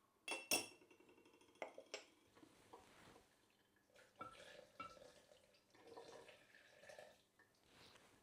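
Kitchenware being handled: a few sharp clinks of dishes or utensils, the loudest about half a second in, some with a short ringing tone, followed by softer knocks and clatter.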